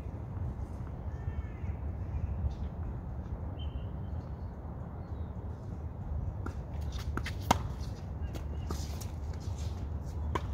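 Tennis ball knocks of a point being played: a string of sharp hits and bounces in the second half, the loudest about three quarters of the way through, over a steady low rumble. A bird chirps briefly about a second in.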